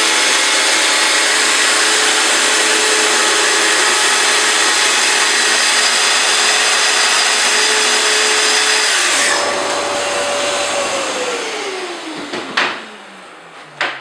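Festool TS55R plunge-cut track saw running at full speed and cutting along the guide rail. It is switched off about nine seconds in, and its motor winds down with a steadily falling whine. A sharp click comes near the end.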